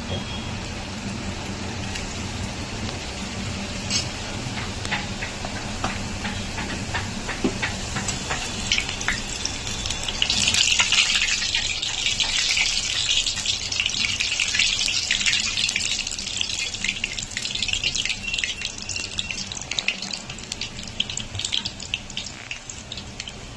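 Puris deep-frying in hot oil in an iron kadai, the oil sizzling and crackling with many small pops. The sizzle grows louder about ten seconds in, as another puri goes in and is pressed down with a steel ladle.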